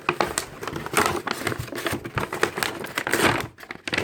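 Delivery packaging being handled and opened by hand: dense, irregular crinkling and crackling with many small clicks.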